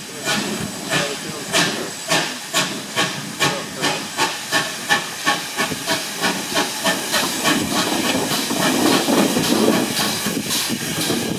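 Steam locomotive chuffing with a steam hiss, its exhaust beats coming faster as it gathers speed and blurring into a steady rush near the end.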